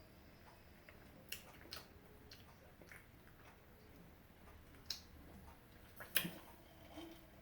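Close-up eating: biting and chewing fried chicken wings, with several sharp crunchy clicks spread through, the loudest about six seconds in.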